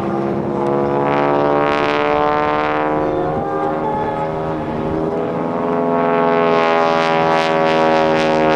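North American T-6 Texan's nine-cylinder Pratt & Whitney R-1340 Wasp radial engine and propeller running hard through aerobatic manoeuvres. The engine note dips in pitch over the first few seconds, then climbs again in the second half.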